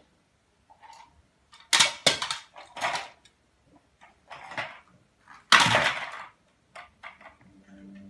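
Plastic toys clattering and rattling as they are handled and knocked together, in several short bursts. The loudest come about two seconds in and again about five and a half seconds in.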